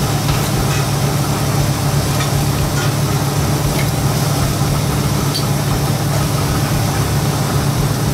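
Steady low hum of a running engine, with a few faint ticks over it.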